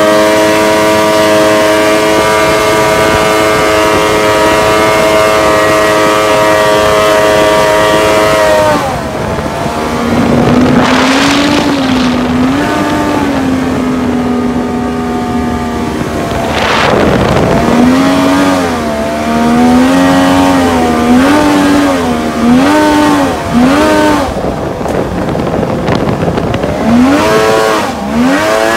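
A homemade jet boat's 1100cc, 120 hp jet ski engine runs at high, steady revs driving the water jet. About nine seconds in the pitch drops as the throttle comes off, and after that the engine revs up and down repeatedly at lower speed, with a few quick rises near the end.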